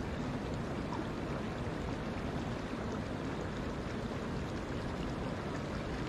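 Shallow woodland stream flowing over rocks: a steady rush of running water with faint small splashes.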